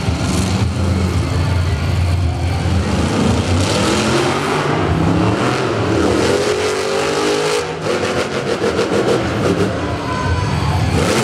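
Wild Side monster truck's engine revving loud as the truck drives across the dirt arena. The pitch climbs for several seconds, drops about two-thirds of the way through, then turns into a fast, even throbbing.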